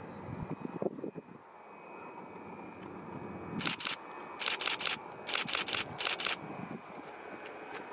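A camera shutter firing in four quick bursts of rapid clicks, over a steady low rumble.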